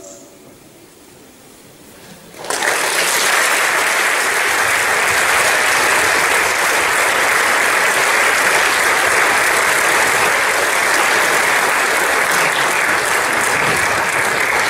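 Audience applauding in a theatre, breaking out suddenly about two and a half seconds in as the orchestra's last chord fades, then carrying on steadily.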